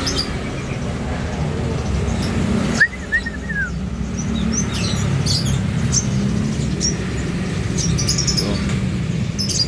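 Many caged small birds chirping and calling, short high chirps over and over, over a steady low rumble of street traffic.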